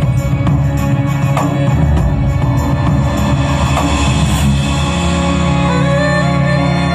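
Soundtrack music with drums and percussion, giving way about five seconds in to long held notes and a slowly gliding melody.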